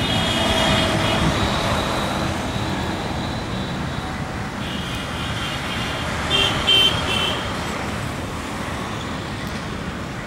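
Steady road-traffic noise with vehicle horns sounding: a horn blast at the start, another from about halfway through, and two short, loud toots soon after.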